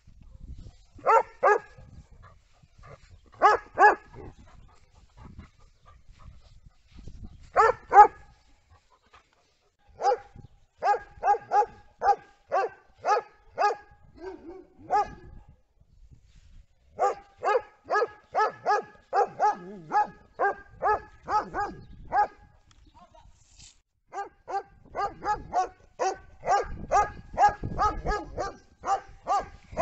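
Young German Shepherd barking at water being sprayed on it. The barks come first in a few pairs, then in quick runs of about two a second with short pauses between them.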